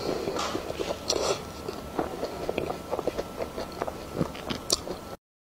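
Close-miked wet chewing of a soft snow-skin mochi (xue mei niang), with many small smacking clicks of the mouth. It stops abruptly about five seconds in.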